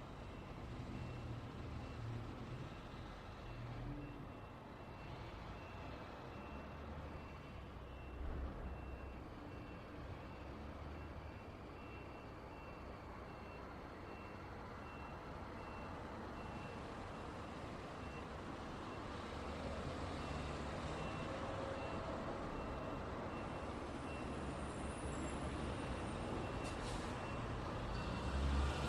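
Road traffic with engines rumbling and tyre noise, over which a truck's reversing alarm beeps at a steady even rate. The traffic grows louder near the end.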